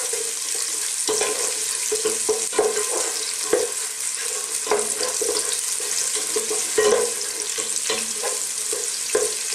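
Sliced onion, garlic and ginger sizzling in hot oil as a wooden spatula stirs them, the spatula scraping and knocking against the pot at irregular moments over a steady hiss of frying.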